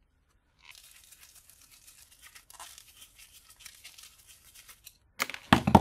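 Faint, scratchy crackling of a steel set screw being worked out of a small aluminium part, ending in a sharp click about five seconds in.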